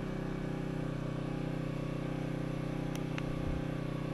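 Champion 1200 watt Model 40048 open-frame generator running steadily with no load, its engine giving an even hum. Two faint clicks about three seconds in.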